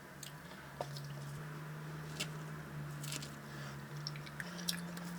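Green salad being tossed and mixed, with soft, scattered crunching and squishing of leaves, over a faint low hum that steps in pitch a few times.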